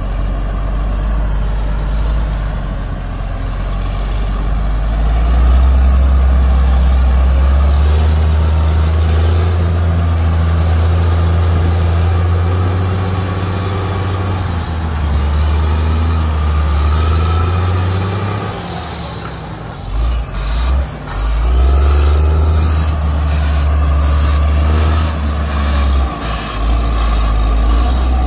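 Diesel engine of a CASE 845B motor grader running under load as it spreads crushed gravel, a loud deep rumble that swells as the machine comes close and dips briefly about two-thirds of the way through.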